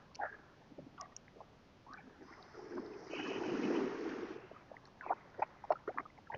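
A small wave washing in at the shoreline, swelling and fading over about two seconds in the middle, with faint scattered ticks around it.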